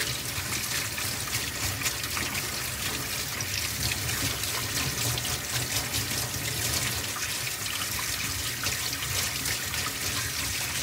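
Kitchen tap running steadily while hands are rubbed and rinsed under the stream, rinsing off soap lather. Water splashes onto the hands and into a stainless steel sink.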